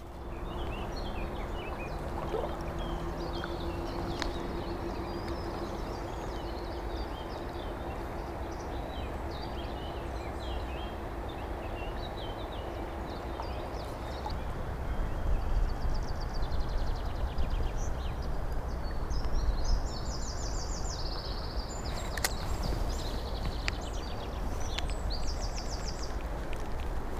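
Shallow river water running steadily over stones and weed, with small birds chirping and trilling throughout.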